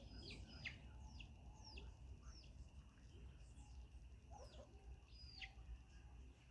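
Faint bird chirps: short calls sweeping down in pitch, repeated irregularly about twice a second, over a steady high tone and low rumble.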